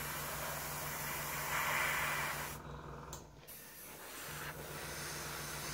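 Airbrush compressor running with a steady low hum under a constant hiss. About a second and a half in, a louder hiss lasts for about a second, and the sound dips briefly soon after.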